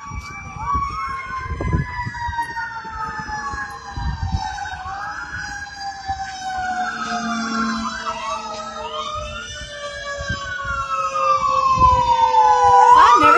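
Several emergency vehicle sirens wailing at once: overlapping rising and falling sweeps, with one long tone slowly falling throughout. They grow louder over the last couple of seconds.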